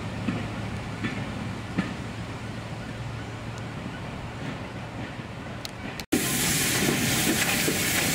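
Railway passenger coaches rolling away over jointed track, rumbling with scattered wheel clicks. About six seconds in this cuts abruptly to a louder, steady hiss of steam from tank locomotives standing in a yard.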